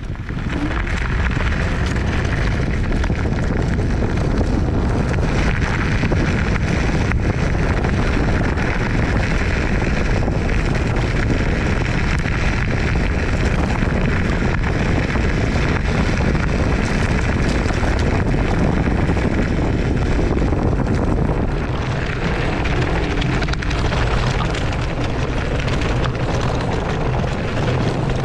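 Zero 10X electric scooter riding fast over a dirt track: a loud, steady rush of wind on the microphone mixed with tyre noise from the rough surface.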